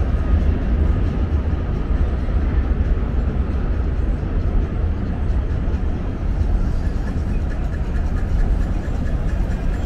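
Steady, loud rumble from the Manhattan Bridge deck overhead: a subway train crossing, mixed with road traffic.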